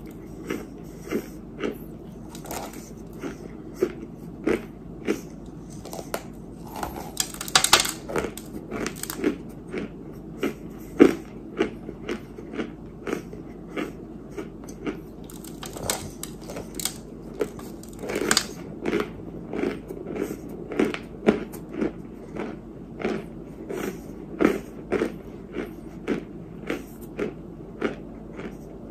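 A person biting and chewing dry chunks of white edible clay, with sharp crunches about one to two a second. There are denser bursts of crunching about a quarter of the way in and again just past halfway.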